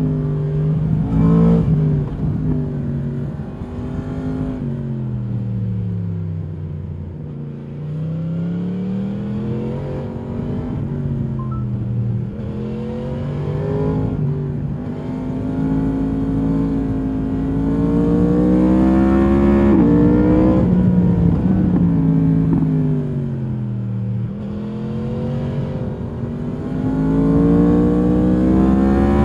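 Stock exhaust of a 2022 Yamaha MT-10's crossplane inline-four, heard from the rider's seat: the revs climb and fall off again several times as the bike accelerates and slows, with a short quick rise about a second in.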